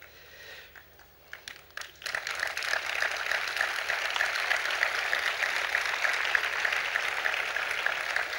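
Audience applauding. A few scattered claps come first, then steady applause sets in about two seconds in.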